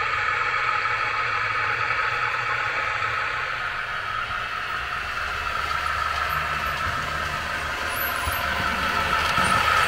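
Model V60 diesel shunting locomotive running with a wagon, a steady engine-like hum with a high steady tone, getting louder near the end as it comes closer.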